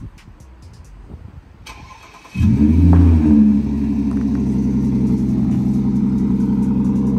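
Audi A7's supercharged V6 starting up about two seconds in: the revs flare briefly for about a second, then settle into a steady idle.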